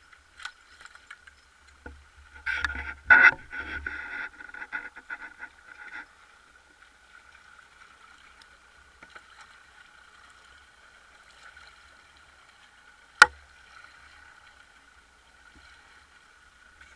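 Handling noise as a large grouper is gaffed at the side of a fibreglass boat and hauled aboard: a few seconds of knocking and scraping about two seconds in, and one sharp knock about thirteen seconds in, over a steady faint hum.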